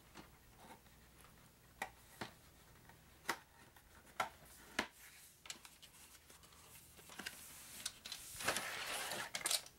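A cardboard game box being handled and worked open: scattered light clicks and taps, then a louder scraping rustle lasting about a second and a half near the end.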